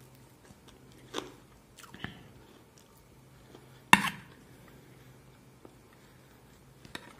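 Close-up chewing and crunching of crispy roast chicken, with a few crackly bites. Just before four seconds in comes a single sharp clink of a metal spoon against a metal bowl, the loudest sound.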